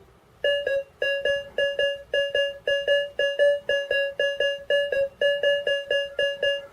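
AKA Berkut-5 metal detector's audio signal on a small silver cross: a short mid-pitched beep of steady pitch, repeated about three times a second, starting about half a second in.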